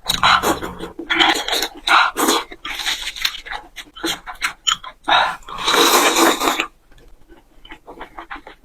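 Close-miked eating sounds: a run of loud, breathy slurps and chewing noises, ending about two-thirds of the way through, then softer wet chewing clicks.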